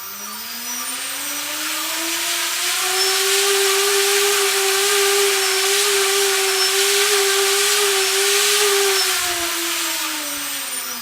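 T-Motor 2206 2000KV brushless motor driving a 6-inch propeller, run up to full throttle: a whine that climbs in pitch over about three seconds, holds steady with a rush of prop wash, then winds down over the last few seconds.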